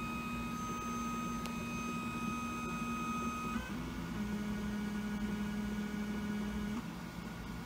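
Axis drive motors of a Tormach PCNC 770 CNC mill whining steadily as the machine moves a touch probe along the aluminium stock. One move ends a little over three seconds in, and a second move at a slightly lower pitch runs until near the end.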